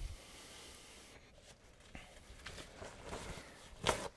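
Handling noise from opening and applying a screen-cleaning product: a soft hiss at the start, then light rustling and rubbing, and one sharp click near the end.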